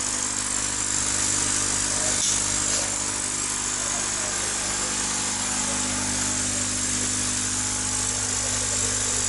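Electric aerator air pump buzzing steadily, with air bubbling from air stones in basins of water.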